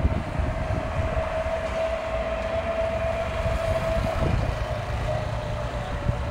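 Kawasaki ZX-25R inline-four engine running at a steady high pitch under way, heard as one sustained whine that fades out about five seconds in. A heavy low rumble of wind buffets the microphone throughout.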